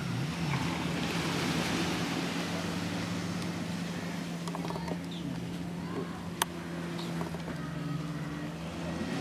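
Steady drone of a motorboat engine over the hiss of surf and wind, with one sharp click about six and a half seconds in.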